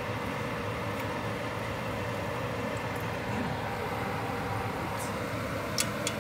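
Hot oil sizzling and bubbling steadily around battered corn dogs deep-frying in a pot. A couple of sharp metallic clicks from kitchen tongs come near the end.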